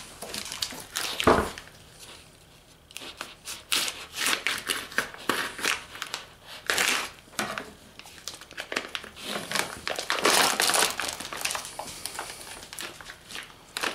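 Clear vacuum-sealed plastic packaging crinkling and rustling as gloved hands pull it open around a rack of beef ribs, in irregular bouts throughout. One louder knock about a second in.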